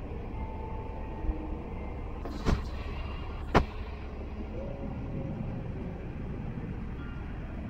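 Steady low rumble of street traffic: a light diesel work truck pulls away while a car approaches. Two sharp knocks about a second apart stand out near the middle.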